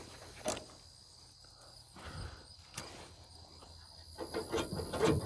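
Light clicks and knocks of hand work on a pickup truck's door and hinge bolts: a sharp click about half a second in, another near three seconds, then a quick run of small knocks near the end. A faint steady high insect chirr runs underneath.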